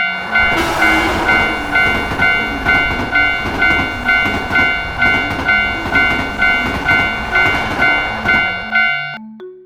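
Japanese railroad crossing warning bell ringing about twice a second while a train runs past with a dense rushing rumble. The train noise and the bell cut off near the end, leaving light background music.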